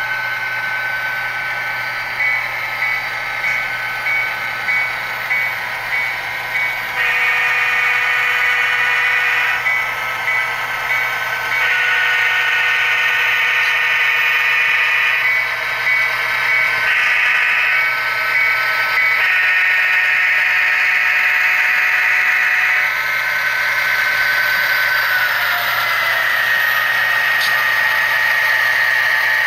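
Sound decoders in HO scale Norfolk Southern diesel locomotives playing diesel engine sound through their small speakers. A bell rings from about two seconds in, and a series of horn blasts, long and short, sounds from about seven seconds in until about twenty-three seconds.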